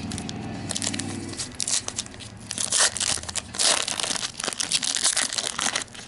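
Foil wrapper of a Topps trading-card pack being torn open and pulled apart by hand, crinkling in irregular crackly bursts, loudest around the middle.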